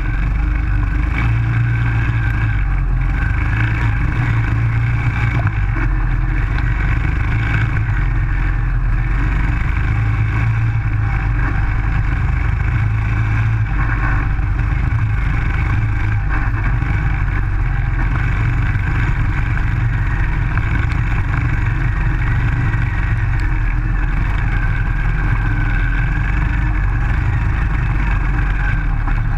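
Single-cylinder Briggs & Stratton engine of a Baja SAE off-road buggy running steadily at high revs while the car drives, heard close up from the car itself.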